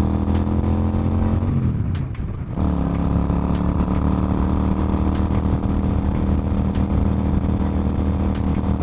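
Suzuki Marauder cruiser motorcycle's engine running while riding. The revs sag slightly, the engine lets off for about a second, then it runs steadily again.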